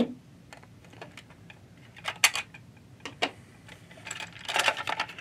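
Sharp plastic clicks and rattles from handling a plastic toy steam locomotive as its battery compartment door is worked off, with scattered single clicks and a quick run of them near the end.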